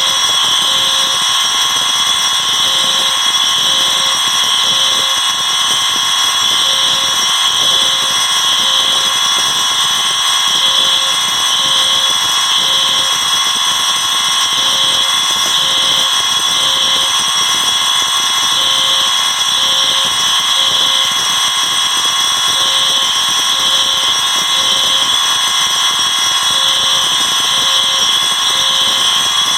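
A collection of about 38 fire alarm notification devices (horns, bells, sirens and speakers) sounding at once, making a loud, dense wall of overlapping alarm tones. Through it runs the temporal-3 evacuation pattern: three short beeps, then a pause, repeating about every four seconds.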